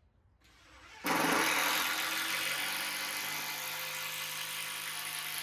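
Electric drill running steadily under load, driving a large screw into a treated timber sleeper; it starts abruptly about a second in.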